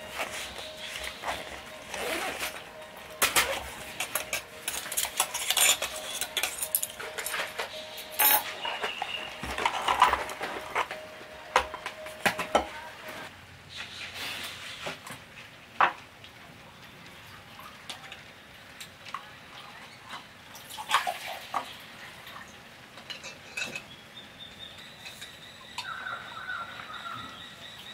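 Metal camp cookware clinking and clattering in a run of sharp knocks, thickest in the first half, as a cooking pot and small gas camp stove are handled. A faint steady high tone is held near the end.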